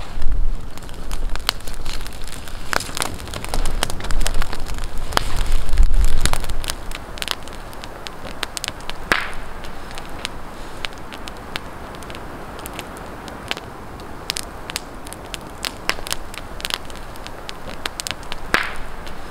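Campfire of burning twigs and branches crackling, with sharp pops scattered throughout. A low rumble sits under the crackle for the first six seconds or so, then the fire crackles more quietly.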